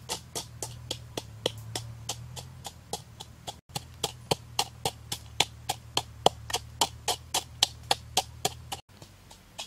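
Steady pounding in a coconut-shell bowl: a fist-held pounder strikes down into the shell, crushing red chilies, in even sharp knocks about three to four times a second.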